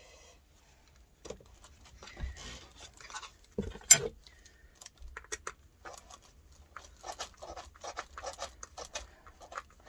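Small clicks, scrapes and rustles of screws being driven in by hand with a screwdriver and plastic and metal parts being handled, with one sharp knock about four seconds in.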